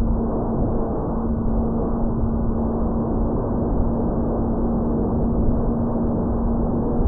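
Model plane's motor and propeller in flight, heard from the onboard camera: a steady hum holding one pitch over a constant rush of wind on the microphone.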